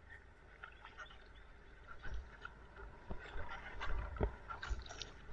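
Water splashing and dripping around a kayak as it is paddled, with scattered short splashes and knocks that grow busier about two seconds in, over a low steady rumble.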